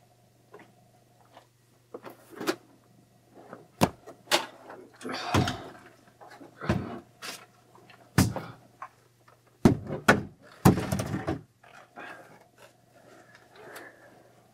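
Irregular knocks, thumps and rattling scrapes from a Stihl chainsaw being lifted and handled with its engine off, over a faint steady hum. The loudest knocks come about halfway through and again around two-thirds of the way in.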